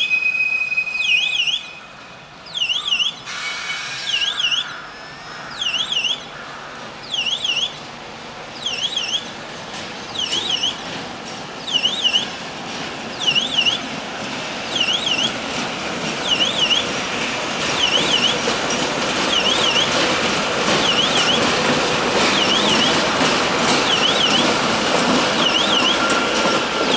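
Level-crossing warning signal sounding a warbling electronic beep about once a second. A ChME3 diesel shunting locomotive's engine and wheels grow steadily louder under it from about halfway through as the locomotive approaches and crosses.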